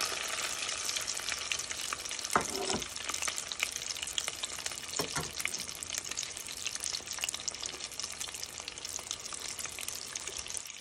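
Chicken nuggets deep-frying in hot oil in a stainless steel pot: a steady crackling sizzle, with two brief knocks about two and a half and five seconds in.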